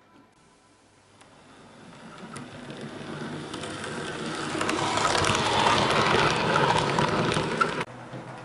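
N-scale model train running on the layout track close to the microphone: a rattling, clicking run of wheels on rail and motor noise. It grows steadily louder as the train approaches, then cuts off suddenly near the end.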